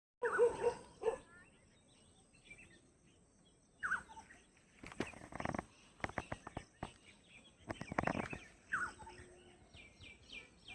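Outdoor birds calling: short falling calls a few times, and a quick series of high chirps near the end. Scattered sharp clicks and knocks in the middle.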